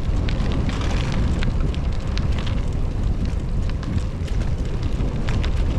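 Bicycle tyres rolling over loose gravel on a sandy gravel road, a steady crackle of small stones ticking and popping under the wheels, with low wind rumble on the microphone. The surface is loose gravel that rides like ball bearings.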